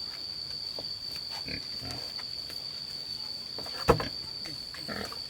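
Pigs grunting a few times in short low grunts. There is a single sharp knock a little before the end, louder than the grunts, over a steady high-pitched whine.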